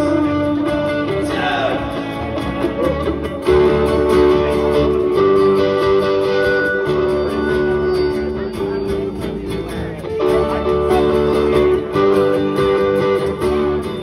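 Live band playing an instrumental passage on acoustic and electric guitar, with held chords and no singing.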